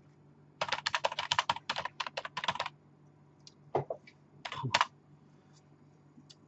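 Fast typing on a computer keyboard, a quick run of key clicks for about two seconds, followed by a couple of separate, louder knocks around four and five seconds in.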